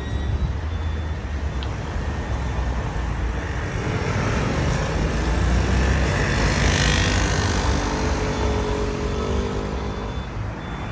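City traffic at a busy intersection: a steady rumble of car and truck engines, swelling as motor scooters pass close by about six to seven seconds in. A vehicle's engine hum stands out near the end.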